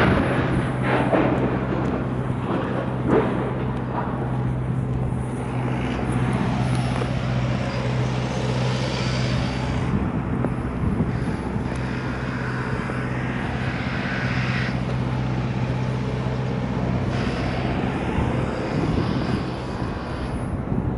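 A steady, even engine hum with a noisy hiss over it, easing off about seventeen seconds in.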